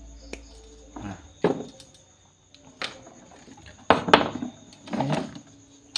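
Small side cutters snipping a wire with one sharp click, followed by a few lighter clicks and knocks of small parts and tools being handled on a workbench.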